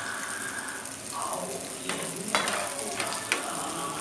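Sweet potato and coconut balls deep-frying in hot oil, a steady sizzle, with two sharp clicks a little over halfway through and near the end.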